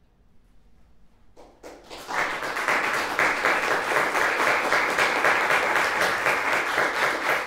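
Audience applause: a hush, then a few first claps about a second and a half in, quickly swelling into full, steady clapping.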